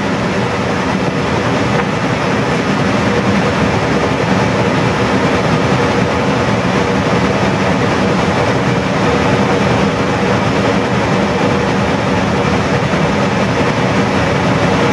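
Steady rush of airflow and engine noise on an airliner's flight deck during approach, with a low, even hum beneath it.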